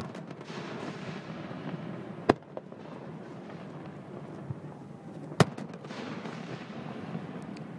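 Aerial fireworks shells bursting close by: three sharp, loud bangs a little under three seconds apart, over a steady din of further distant bursts and crackle.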